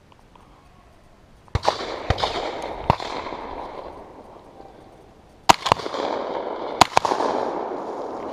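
Shotgun shots at doves passing overhead, each blast followed by a long echo that dies away over a couple of seconds. A group of shots starts about a second and a half in, and the two loudest shots come past the middle, a little over a second apart.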